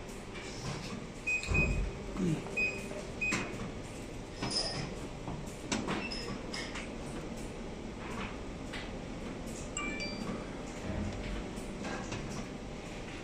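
Factory workshop background noise: scattered knocks, clicks and clatter over a low steady hum. There is a heavier thump about one and a half seconds in and a few short high tones a little after it.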